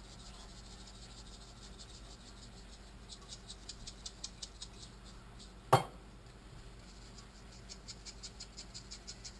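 A salt shaker and then a pepper shaker shaken over a saucepan: stretches of quick, rhythmic rattling ticks, broken about halfway through by one sharp knock, the loudest sound. By the end the pepper shaker is running out.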